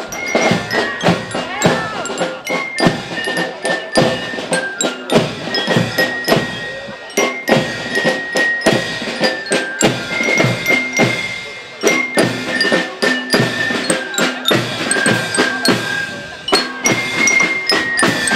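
Marching band of snare drums and bell lyres playing: a steady beat of drum strokes under a melody of high, ringing bell notes on the lyres.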